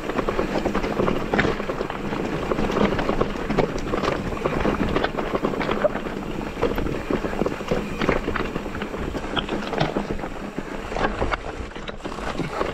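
Electric mountain bike clattering down a rocky track: a continuous run of irregular knocks and rattles as the tyres hit stones and the bike's parts rattle, over a low rumble.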